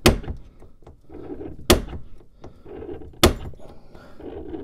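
Starrett automatic spring punch firing against a drawer-glide bracket hole into the dresser's wood, to start a screw hole: three sharp snaps about a second and a half apart, each with a soft noise as the punch is pressed down before it releases.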